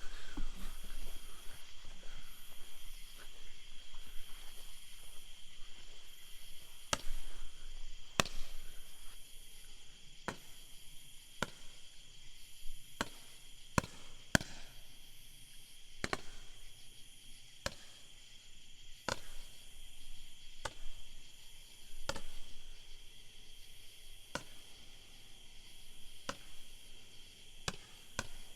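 19-shot consumer firework cake firing its shots one at a time: sharp pops spaced one to two seconds apart, starting several seconds in after the fuse burns, with no big booms, a cake that is pretty weak.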